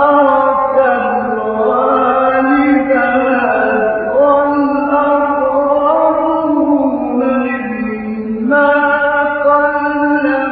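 A man's voice in melodic Quran recitation (tajwid), drawn out in long notes that glide up and down. A new phrase begins about eight and a half seconds in.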